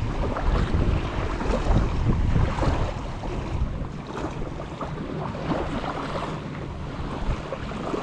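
Wind buffeting the microphone over surf washing on the beach, with the heaviest gusts in the first few seconds.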